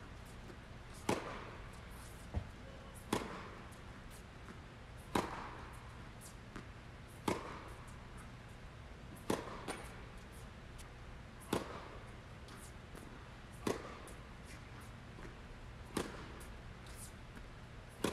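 Head Gravity Pro tennis racket striking the ball on topspin forehands about every two seconds, each hit a sharp pop with a short echo of a large indoor hall. Fainter knocks of the ball between hits, over a steady low hum.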